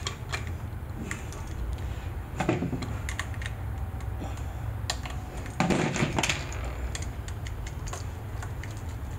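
Small clicks and rattles of hand tools working on a wall switch: wire strippers on the white wire, then a screwdriver at the switch's terminal screw, with a louder rustle about six seconds in. A low steady hum lies underneath.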